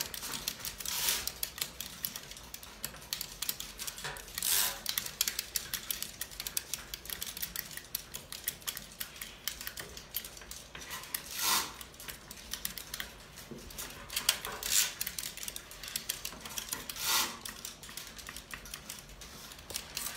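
Soroban beads clicking in rapid, uneven runs as fingers flick them up and down the rods during fast abacus calculation. Every few seconds comes a louder, scratchy burst about half a second long.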